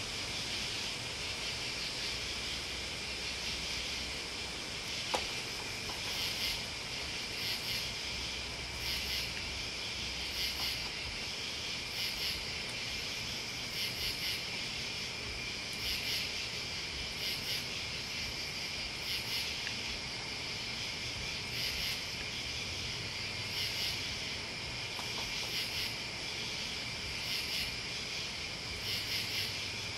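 Crickets and other night insects calling together: a steady high trill with louder pulsing chirps about every one and a half seconds. There is one sharp click about five seconds in.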